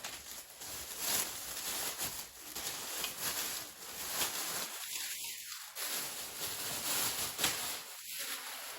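Light handling noises, soft rustling with a few faint clicks, as small plastic and metal model train parts are moved about.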